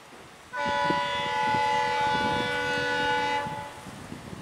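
WAP-7 electric locomotive sounding its air horn: one steady blast of several tones together, about three seconds long, starting suddenly about half a second in.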